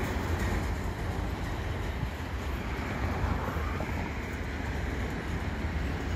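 Freight train of autorack cars rolling past, a steady rumble of the cars on the rails.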